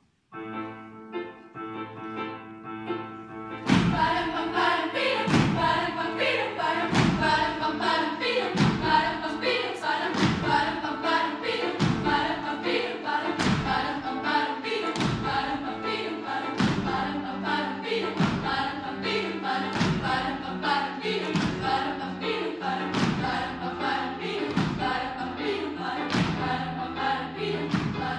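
Children's choir singing with stage piano accompaniment. About four seconds in, the music fills out and a steady thumping beat comes in.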